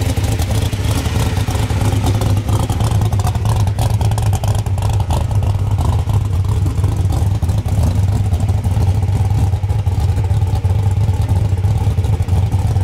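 Supercharged engine of a 1941 Willys gasser idling loudly and steadily, heard up close at its side-exit exhaust.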